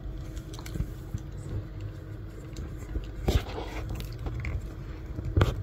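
Precision screwdriver turning a tiny Phillips screw into a plastic key fob case, with faint scratching and a couple of short clicks from handling the fob, about three seconds in and near the end.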